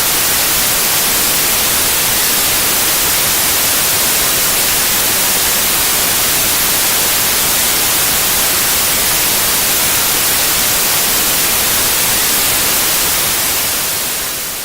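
Synthetic white noise test signal: a loud, steady hiss across the whole range, strongest in the treble, that begins to fade out near the end.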